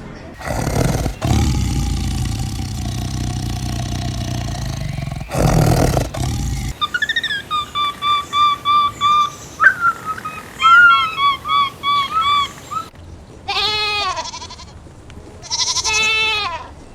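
Loud low rumbling noise for the first six seconds, then a quick run of short high peeps at about three a second, then a goat bleating twice, loud and wavering, near the end.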